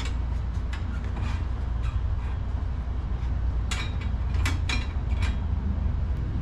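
Scattered clicks and knocks of metal parts being handled while a motorcycle rear wheel is refitted, with a busier run of clinks about four seconds in, over a steady low rumble.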